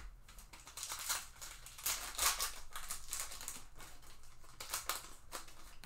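Foil wrapper of a 2021 Topps Finest Flashbacks baseball card pack being torn open and crinkled by hand, a run of crackling rustles, loudest about one and two seconds in.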